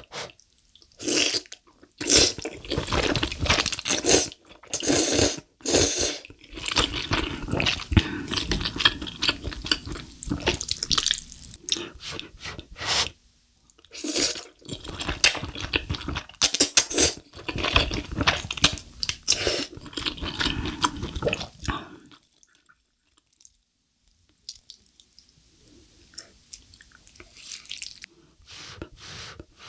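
A person loudly slurping and chewing thick, saucy black bean (jjajang) instant noodles, close to the microphone, in long runs of wet slurps. About two-thirds of the way through it drops to much quieter, occasional chewing sounds.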